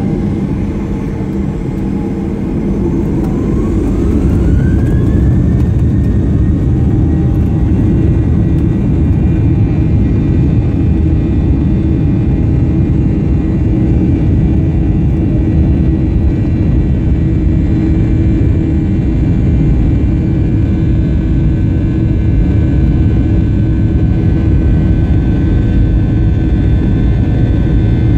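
Boeing 737's CFM56-7B jet engines spooling up for takeoff: a whine rises in pitch a few seconds in as the sound grows louder. The engines then run steadily at takeoff power, with a loud rumble and a high whine, through the takeoff roll.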